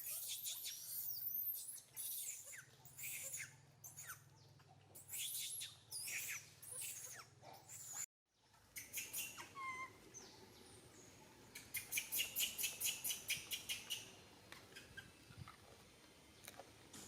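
Baby monkey giving many short, high-pitched squeaks and chirps that glide up and down, breaking off abruptly about halfway through. Later comes a quick, even run of about a dozen sharp sounds.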